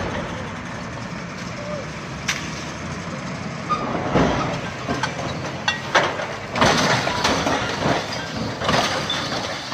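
Heavy vehicle engine running steadily at a road recovery, with indistinct voices and several short bursts of noise about four, six to seven and nine seconds in.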